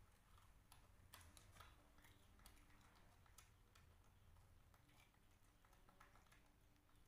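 Near silence, with faint, irregular small crunches of crispy cream-filled wafer rolls being nibbled.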